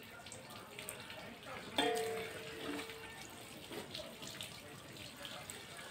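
Water poured by hand from a small vessel over a deity image, splashing down into a large pot below in a thin continuous stream, as in a ritual bathing (abhishekam). About two seconds in, a single ringing tone starts suddenly and fades away over about two seconds.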